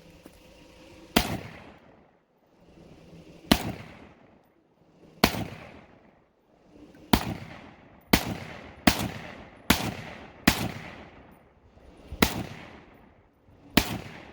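Draco AK pistol in 7.62 firing ten single shots at an uneven pace, one to two seconds apart with a quicker run in the middle, each shot followed by a long echo.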